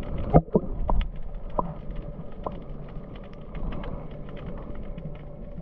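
Seaweed brushing and scraping along a kayak's hull, heard underwater: a dense crackle of small clicks over a low rumble, with a few louder knocks in the first second.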